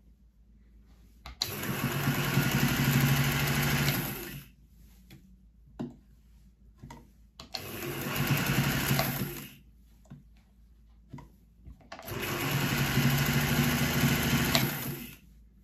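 A freshly serviced and lubricated 1955 Singer 201K electric sewing machine stitching through folded cloth in three runs of about two to three seconds each, its motor and needle running at a steady speed. Small clicks from handling the cloth fall in the pauses between runs.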